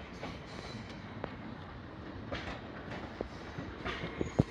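Railway station train noise: a steady rumble with a few sharp, irregular clicks and knocks, the loudest near the end.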